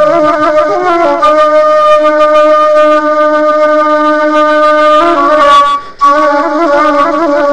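Background music: a solo wind instrument playing a slow melody of long held notes with wavering ornamental turns, breaking off briefly about six seconds in.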